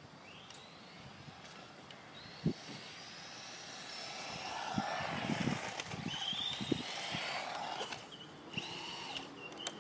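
Electric motor of a battery-powered hobby remote-control car whining and rising in pitch as it speeds up, with a few knocks as it bumps along. It is loudest for a few seconds about halfway through.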